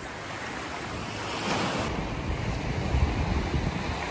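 Sea waves washing on a beach, with wind buffeting the microphone; a wave surges louder about a second and a half in.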